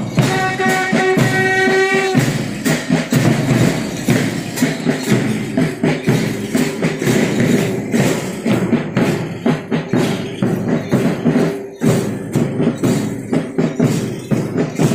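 School marching band: bugles hold a note for about the first two seconds over the drums, then snare drums, a bass drum and cymbals keep beating a steady marching rhythm.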